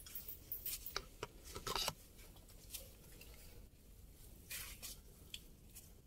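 Footsteps scuffing and crunching on the gritty dirt floor of a cave, as irregular scrapes that are loudest in the first two seconds, with another cluster a little past halfway.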